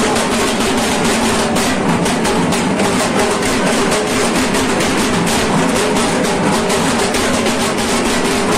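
Many dhak drums beaten together in a fast, steady rhythm, with held musical tones sounding underneath.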